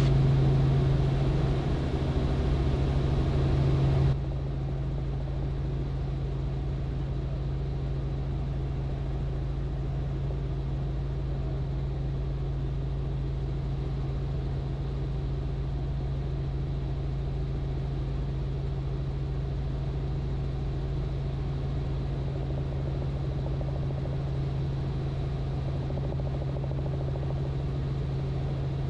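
Robinson R44 helicopter in cruise flight: a steady low engine and rotor drone. A brighter hiss over it cuts off suddenly about four seconds in, and the drone carries on unchanged.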